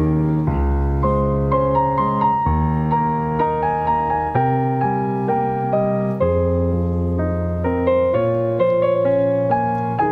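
Background piano music: a gentle melody over steady low chords, a new note every half second or so.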